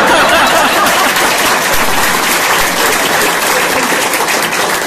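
A large crowd applauding with dense, fast clapping, and voices cheering and shouting over it, loudest in the first second.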